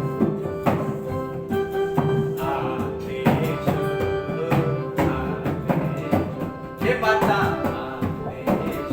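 Instrumental interlude of a Hindi devotional bhajan: an electronic keyboard plays a melody over a long held note, while a dholak beats out a steady rhythm.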